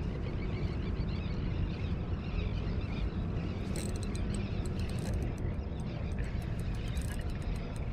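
Steady low outdoor rumble of wind and water at a rocky shoreline. About four seconds in, a run of fast, light ticking joins it.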